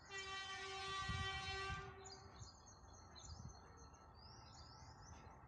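Electric locomotive horn, a WAG-7, sounding one steady faint blast of about two seconds. Birds chirp after it.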